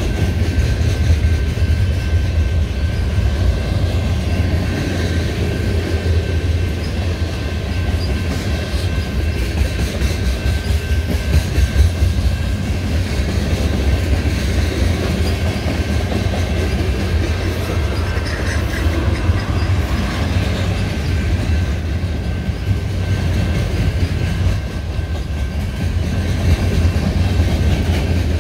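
Freight train cars (gondolas, covered hoppers and tank cars) rolling past: a steady heavy low rumble with rapid wheel clatter on the rails and a thin steady high whine above it.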